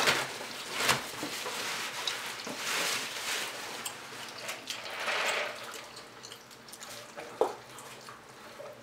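Close-miked chewing of fried chicken and egg rolls, with wet mouth sounds coming in irregular bursts.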